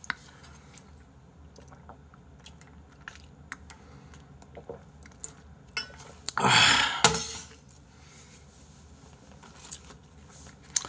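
Drinking from a large insulated drink jug: mouth and swallowing noises, with small clicks and knocks as the jug is handled. A loud rushing burst, under a second long, comes a little past halfway.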